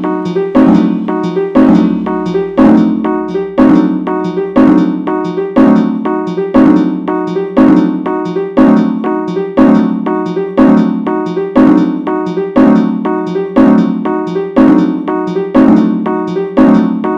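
Fire alarm chime appliance sounding continuously: the same struck, ringing tone repeats about once a second, each strike fading before the next.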